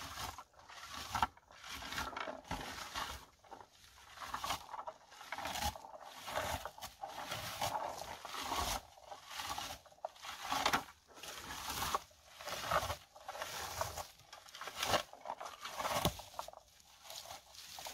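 Plastic berry picker combing through bilberry bushes, making repeated rustling, scraping strokes as leaves, twigs and berries are raked into it.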